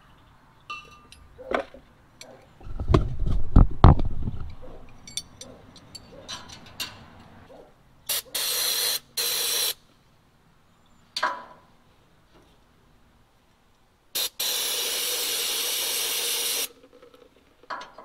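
Aerosol carb cleaner sprayed in two short bursts about eight seconds in, then one long spray of about two seconds near the end, to clean burnt, dried-up deposits off a truck air compressor's stuck unloader valves. About three seconds in there are a few loud low thumps and clicks.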